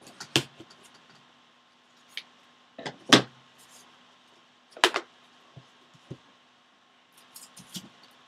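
Clatter of scissors and a roll of tape being set down and handled on a tabletop: a handful of sharp knocks and clunks, the loudest about three seconds in.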